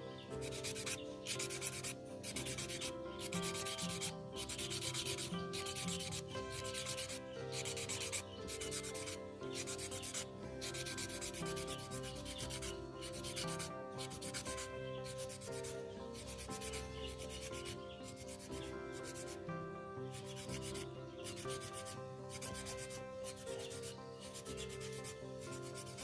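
Wooden chopstick rubbed back and forth on a whetstone to sharpen its tip: a steady run of gritty scraping strokes, a little more than one a second.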